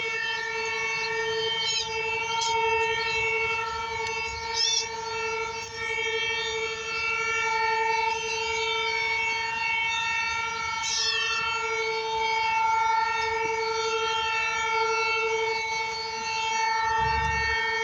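Outdoor warning siren sounding one steady tone throughout, its loudness swelling and fading slowly every few seconds.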